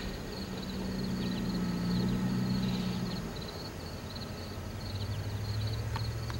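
Low, steady drone of an EMD SD70MAC diesel-electric locomotive's 16-cylinder two-stroke engine, working as the rear distributed power unit of a freight train as it pulls away. The note shifts lower about halfway through.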